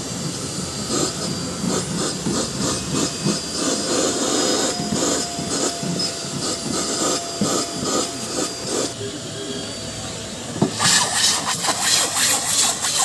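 Car seats being cleaned: irregular rubbing and hissing against the upholstery, turning into sharper, louder hissing near the end.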